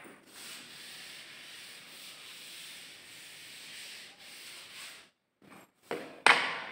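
Blackboard duster rubbed back and forth on a chalkboard, a steady scrubbing that stops about five seconds in, followed by two short louder sounds near the end.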